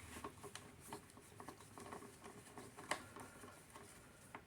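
Faint scattered clicks and light rubbing of a hand tool on metal as a bolt is run in on a lawn mower engine's cover, with one sharper click about three seconds in.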